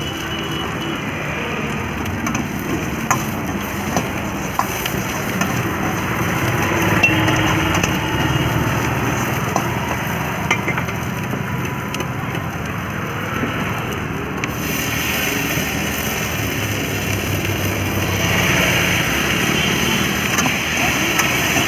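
Vegetable Manchurian and cabbage frying in a wok over a gas burner, a steady sizzle with occasional clinks of a metal ladle against the wok. The hiss turns brighter about two-thirds of the way through, as the ladle stirs the pan.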